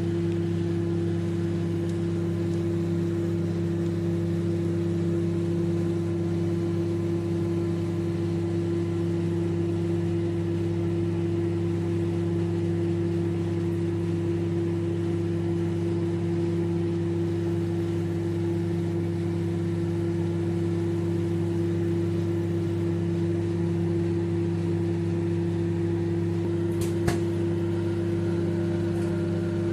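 Microwave oven running with a steady hum while heating popcorn, before the popping has got going. There is a single sharp click about 27 seconds in.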